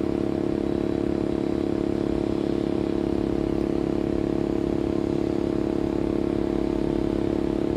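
Sanyo SAE-V28HF heat pump's compressor running in heating mode: a steady, even hum with several strong tones, somewhat loud, which the owner counts as an abnormal noise.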